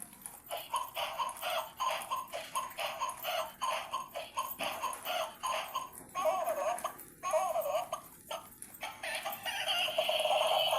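A battery-powered dancing Santa chicken toy playing its electronic song: a run of short, evenly spaced clucking calls, two longer wavering calls in the middle, then a synthesized singing voice starting near the end.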